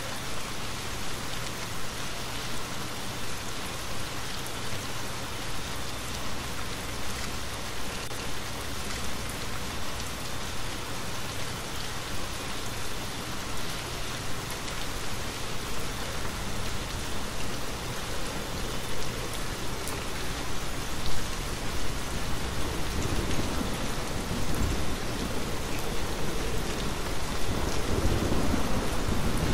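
Steady rain falling. A low rumble of thunder builds over the last several seconds.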